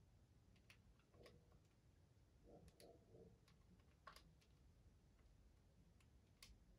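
Near silence broken by a few faint, scattered clicks, the keys of a handheld calculator being pressed.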